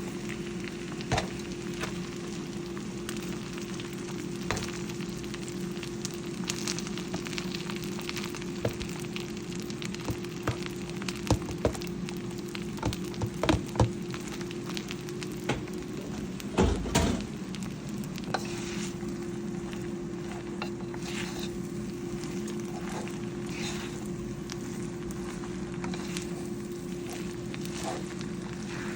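Food sizzling as it fries in a pan, stirred with a utensil that knocks and scrapes against the pan now and then, over a steady low hum.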